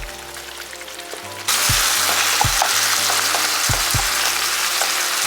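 Ground beef frying in a pan, a loud sizzle starting suddenly about a second and a half in, over background music with a steady beat.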